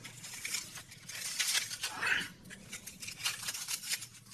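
Close-up eating sounds from biting into and sucking meat out of giant crab legs: a run of crackly clicks and smacks, with a louder smack about two seconds in.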